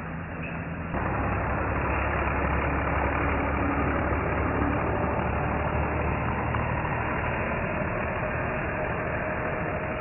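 Combine harvester engine running steadily, getting suddenly louder about a second in and holding at that level.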